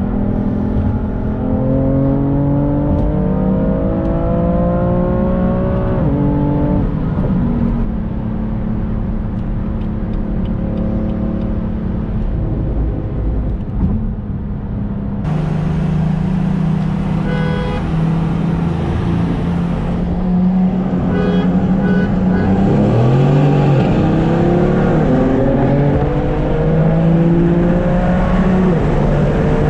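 BMW F80 M3 Competition's twin-turbo inline-six, tuned to Bootmod3 Stage 1, pulling under acceleration with its pitch climbing for about six seconds. The revs then drop at an upshift and settle into steady cruising. Later the revs dip briefly and climb again as the car accelerates once more.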